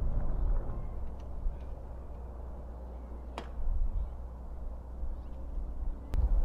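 Low rumble of wind on the microphone, with a sharp click about three and a half seconds in and another near the end, where the rumble grows louder.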